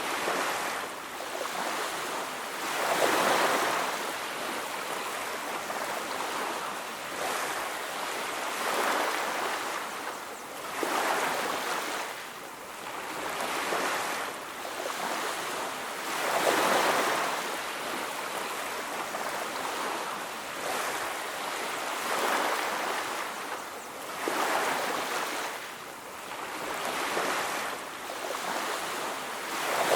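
Ocean surf: waves washing onto a beach, the rush of water swelling and falling away every few seconds.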